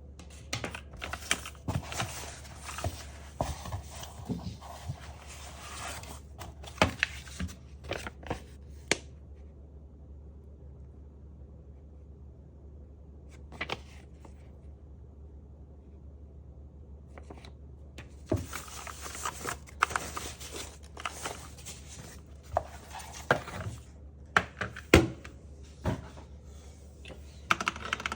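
Unboxing and handling noise: rustling, crinkling and sharp knocks as packaging and a keyboard are handled. It comes in two busy spells with a quiet pause of several seconds between them.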